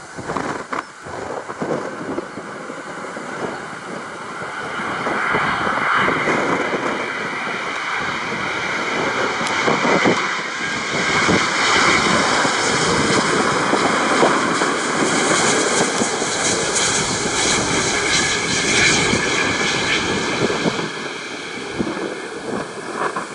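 Airbus A350-900's Rolls-Royce Trent XWB turbofan jet engines on landing approach, passing close by. A steady jet rumble with a high whine builds over the first few seconds, stays loud through the middle and eases near the end.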